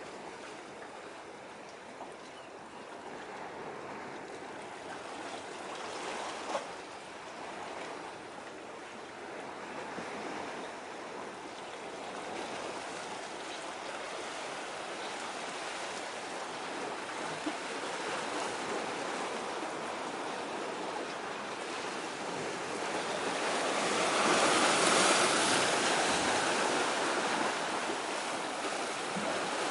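Sea water washing and lapping at the shore, a steady rushing noise that swells into a louder wash about three quarters of the way through.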